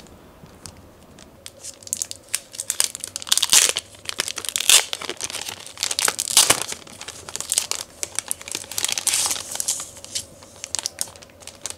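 Plastic packaging and protective film crinkling and tearing as it is peeled off a new e-reader and handled, in irregular crackles and rustles that start about a second and a half in.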